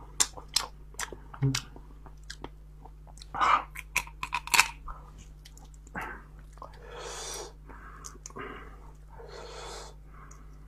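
Snail shells cracking and crunching as they are broken apart by hand to twist out the meat, a quick run of sharp cracks through the first half, the loudest around three and a half seconds in. Softer chewing sounds follow in the second half.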